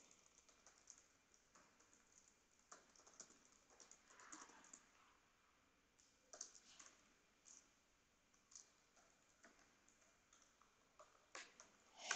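Faint keystrokes on a computer keyboard, typing in short irregular runs.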